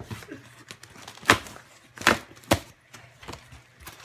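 Large corrugated cardboard shipping box being cut and torn open by hand: three sharp cracking rips, about a second in, two seconds in and half a second later, among smaller scrapes and rustles of cardboard.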